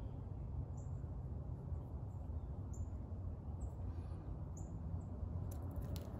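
Outdoor background: a steady low rumble with a handful of short, high, falling bird chirps spaced about a second apart. A few light clicks come near the end.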